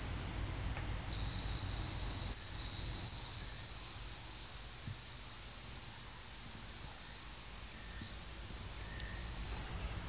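Japanese bell cricket (suzumushi) singing: a high, clear ringing trill that starts about a second in and stops shortly before the end.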